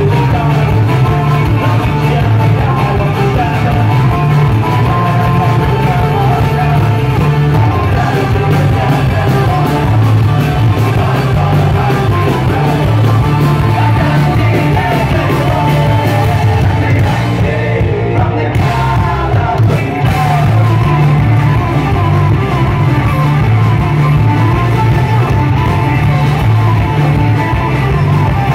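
Folk-punk band playing live and loud: fiddle, electric and acoustic guitars, bass and drums, with shouted singing over it. The cymbals and highest notes drop out briefly about two-thirds of the way through.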